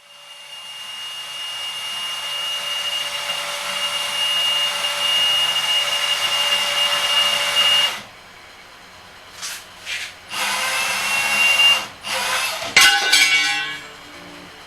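A power tool running under load in one long steady run of about eight seconds with a high whine, then cutting off, followed by several short runs near the end.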